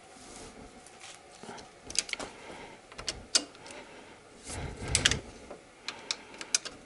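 Socket wrench working the cylinder-head bolts of a VAZ-21126 engine: scattered sharp metallic clicks and clinks as the socket is fitted on each bolt and turned a quarter turn to loosen it. The loudest, fuller knock comes about five seconds in.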